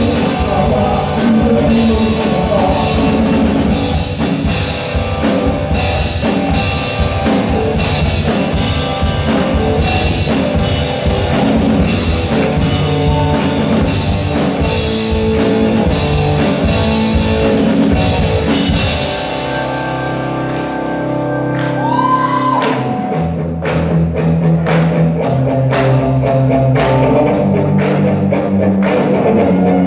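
Live worship band playing a rock-style song: drum kit, electric and acoustic guitars, bass and keyboard, with singing. About two-thirds of the way through the band drops to a thinner held passage with a short sliding tone, then the drums come back in.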